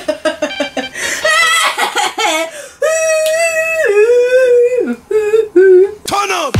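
A voice singing a silly made-up tune in a sing-song rhythm, with long held notes in the middle that step down in pitch.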